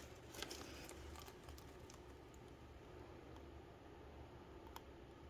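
Near silence with a low steady hum, broken by a few faint light clicks in the first two seconds and one more near the end.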